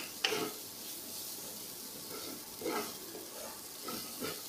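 Onion, pea and spice masala sizzling in a kadhai as a spatula stirs it, with a few louder scrapes of the spatula in the pan. The masala is fried through.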